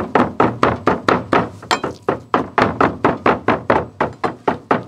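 Two cleavers chopping on thick round wooden chopping boards, mincing raw meat in rapid, overlapping strikes several times a second. The chopping stops at the very end.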